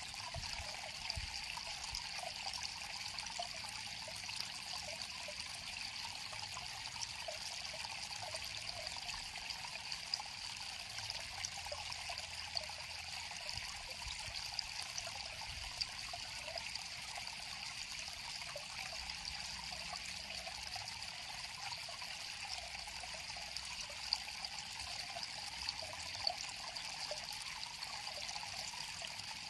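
River water flowing and trickling steadily, with small splashes dotted through it.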